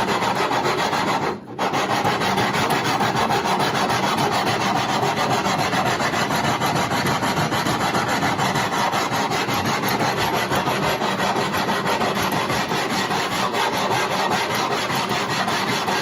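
80-grit sandpaper on an aluminium radiused sanding block being worked back and forth over a wooden guitar neck, a continuous scratchy rasping. It breaks off briefly about one and a half seconds in. The sanding is doing the final shaping, taking out the dips and low spots left by a rasp.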